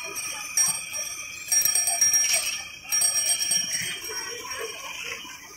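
Bright metallic bell ringing, starting three times: about half a second in, at about a second and a half, and at about three seconds. Each ring fades over roughly a second.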